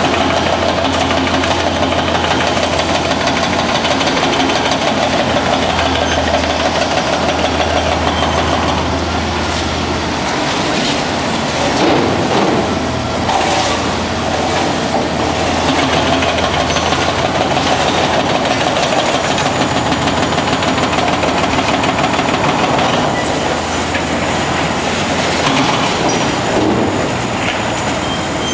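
Heavy diesel demolition excavators running at a busy demolition site. Their low engine drone sits under constant clattering and knocking of broken concrete, with a denser run of knocks about twelve to fourteen seconds in.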